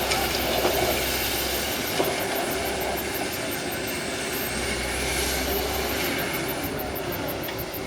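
Excavator engine running steadily, with a single sharp knock about two seconds in.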